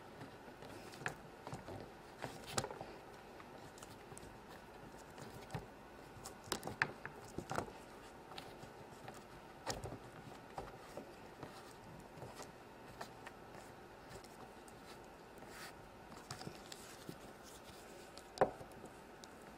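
Faint soft rubbing and tapping as fingers press Moon Dough into a plastic pizza-pan mold, with scattered light clicks of the plastic. The sharpest click comes near the end.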